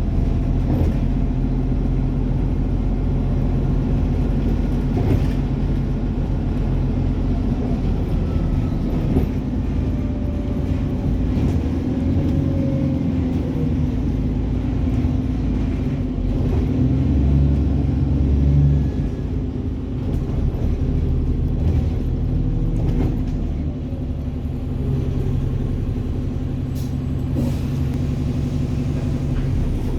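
Alexander Dennis Enviro400 double-decker bus engine running under way, with diesel thrash and faint turbo whine that rise and fall with the throttle. It is briefly louder a little past the middle.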